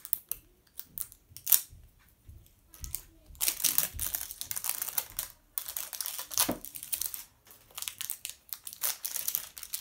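Wrapping crinkling and tearing as a layer is peeled off a toy surprise ball by hand: a few light rustles and clicks at first, then steady crinkling from about three seconds in until near the end.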